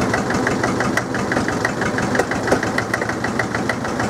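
Drott 100 loader's International BD-264 diesel engine running cold just after a cold start, still warming up. It makes a steady clatter of about eight knocks a second.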